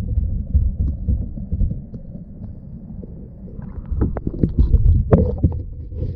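Wind buffeting an action camera's microphone on a kayak, giving an uneven low rumble, with scattered knocks and bumps that bunch up about four to five seconds in.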